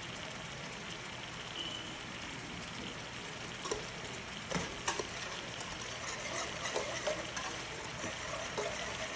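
Steady sizzle of a pan of steak, peppers, shrimp and mushrooms sauteing, with a few light clicks midway.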